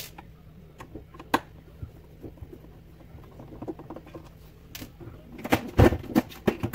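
Clicks and light knocks of a screwdriver and plastic parts inside a Saeco Xsmall espresso machine being taken apart, then a cluster of louder thumps and rattles near the end as the machine's plastic housing is gripped and shifted.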